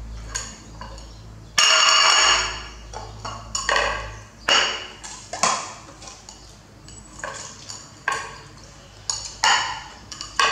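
A plate clattering on a tiled floor as a young macaque flips it and shifts it about: one loud ringing clatter about a second and a half in, then a string of short knocks and clinks.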